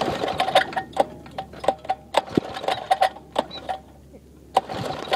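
A 5 hp minibike engine's recoil pull-starter yanked several times, the rope whirring and the starter clicking as the engine turns over without catching.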